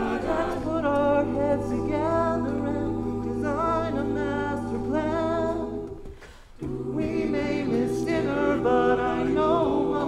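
A cappella group singing a wordless instrumental passage: sustained vocal chords over a sung bass line. The voices drop out briefly about six seconds in, then come back.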